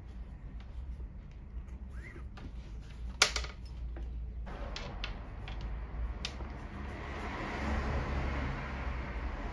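Leather bootlace being threaded and drawn through the metal eyelets of a leather work boot, with small scattered clicks and rustles and one sharp knock about three seconds in, over a steady low hum. From about seven seconds in a soft hiss grows.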